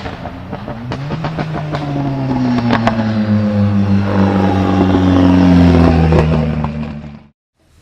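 Turbocharged Ford Sierra Cosworth four-cylinder engine under load, its note building to its loudest about six seconds in, with sharp pops and crackles from the exhaust in the first second and again about three seconds in, typical of its anti-lag system. The sound cuts off suddenly near the end.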